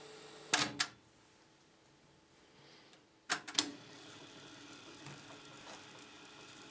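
Transport keys and tape mechanism of a Pioneer CT-F850 cassette deck with freshly fitted belts: a pair of sharp mechanical clicks about half a second in, after which the faint running hum drops away, then another cluster of clicks a little past three seconds as a key is pressed again and the mechanism's faint hum resumes.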